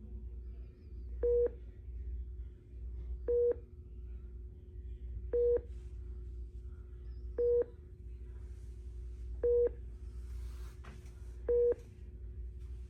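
Hospital patient monitor beeping: a short single-pitched beep about every two seconds, six times, over a steady low hum and room rumble.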